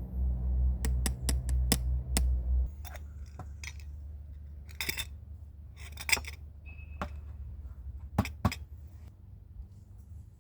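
Small clicks and glassy, metallic clinks of coffee gear being handled and set down, a few at a time. A low steady hum underneath cuts off about two and a half seconds in.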